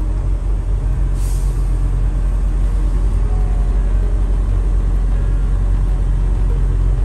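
Semi truck's diesel engine running with a steady low rumble, heard inside the cab as the truck creeps forward. A short hiss of air from the truck's brakes comes about a second in.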